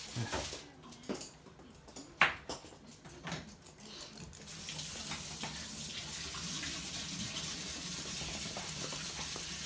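A few sharp clicks and knocks, the loudest about two seconds in, then from about halfway a steady hiss.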